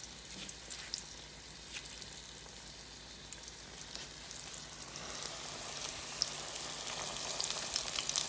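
Corn-flour-coated whiting fillets frying in shallow hot oil: a steady sizzle with fine crackling, growing louder and denser from about five seconds in.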